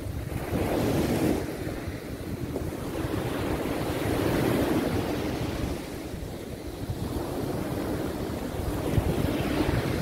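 Small Mediterranean waves breaking and washing up a sandy beach, the surf swelling louder three times as waves come in. Wind rumbles on the microphone underneath.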